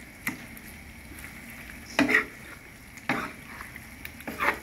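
Metal spoon stirring chunks of fish in thick sauce in a frying pan, scraping against the pan about four times, over a low steady sizzle.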